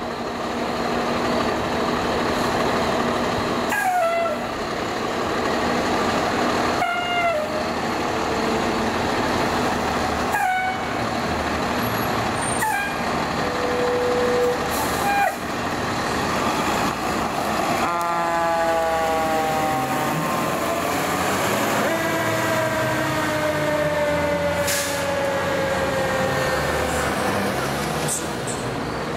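Fire engine's diesel running as it pulls out, with five short pitched tones that dip at their onset, then a siren winding up a little past halfway and sliding slowly down in pitch.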